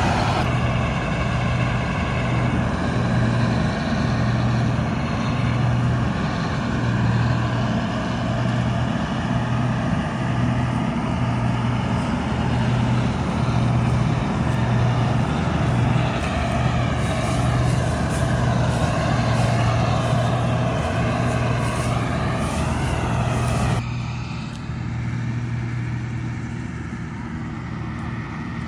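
Combine harvester running at work: a steady, loud diesel engine drone with a wavering mechanical whine above it. Near the end the sound drops abruptly to a quieter, duller running.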